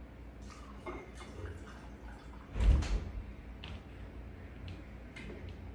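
Liquid poured from a glass carafe into glasses of ice, with a few light clinks and one dull thump about two and a half seconds in.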